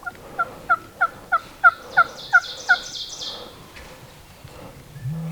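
Turkey calling: a series of about nine short, falling notes, roughly three a second, lasting about three seconds. A short low hum follows near the end.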